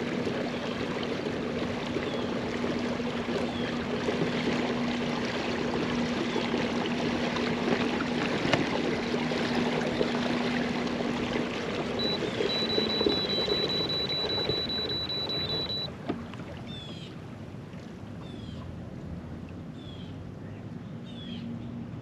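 Electric trolling motor of an Old Town AutoPilot kayak running with a steady hum, water rushing along the hull as it moves. About 13 seconds in the hum stops, and a few seconds later the water noise falls away as the kayak slows. A high steady tone sounds for about four seconds while the hum stops.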